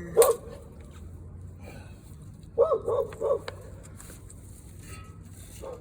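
A dog barking: one bark just after the start, then three quick barks about two and a half seconds in.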